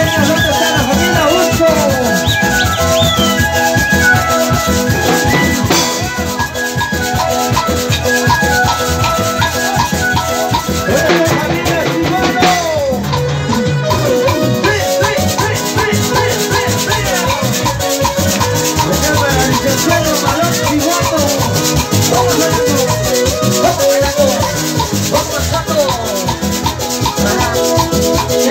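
Band music for dancing: a melody moving in short steps over a steady, fast percussion beat.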